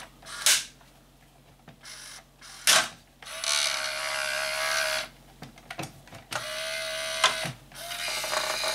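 Small electric gear motors of a Hobby Engine 1/14-scale RC wheel loader whining in three short runs as the lift arm and bucket are worked. A couple of sharp plastic clacks come in the first few seconds.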